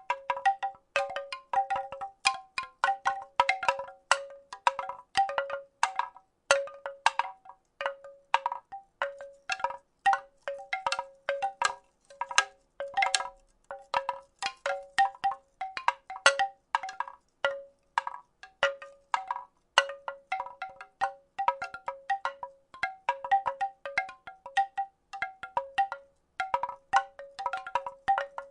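Wooden rattle shaken steadily, its pieces knocking in quick, irregular clusters, each knock with a short pitched ring.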